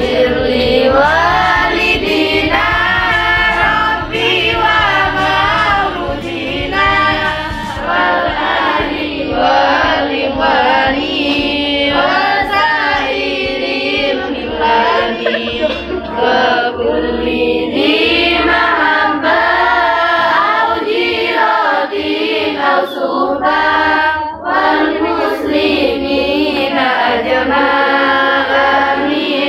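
A group of female voices singing together in one continuous, flowing melody.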